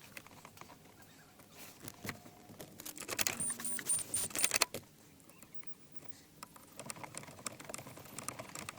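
Small metallic clicks and rattles as the wiper switch's Phillips screws are started by hand and driven back in with a screwdriver, busiest between about two and five seconds in and picking up again near the end.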